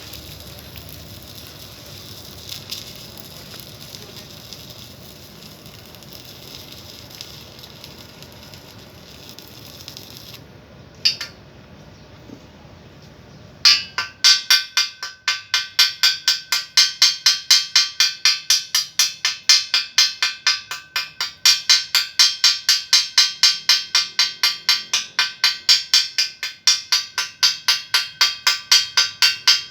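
Steady crackling hiss of an electric arc welding pipe, stopping about ten seconds in. A few seconds later a rapid, even series of high-pitched beeps starts, about three a second, and keeps on.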